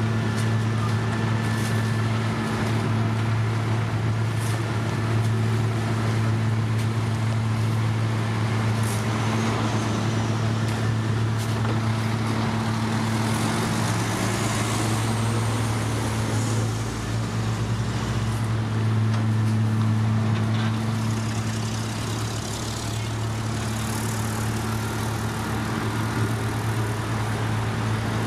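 Heavy diesel paving machinery running steadily with a deep, constant engine hum; about halfway through, an engine's pitch briefly rises and falls.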